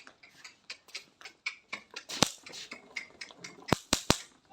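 A series of sharp cracks or knocks with fainter clicks between them: one loud crack about two seconds in, then three in quick succession near the end.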